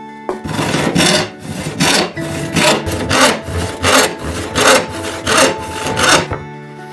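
Rasping back-and-forth strokes of a hand tool on a workpiece, about ten strokes at roughly one and a half per second.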